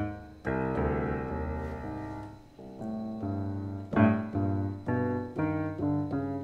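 Piano sound from a Roland Phantom XR synthesizer played as chords from an 88-key MIDI controller. The chords are struck one after another and each fades, coming quicker after about four seconds in.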